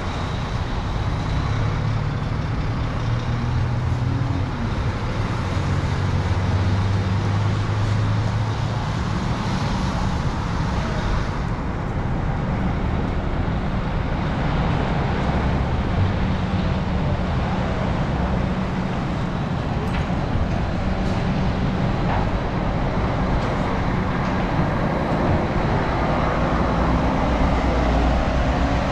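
Steady city street traffic noise: passing and idling motor vehicles with a continuous low engine rumble.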